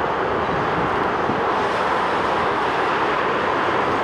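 Airbus A350-900 with Rolls-Royce Trent XWB engines at takeoff thrust just after lift-off: a steady jet roar that slowly grows louder as it climbs toward the listener.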